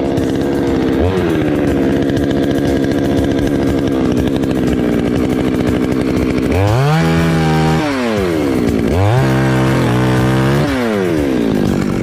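Chainsaw running at a steady speed, then speeding up sharply twice, each time held about a second before dropping back.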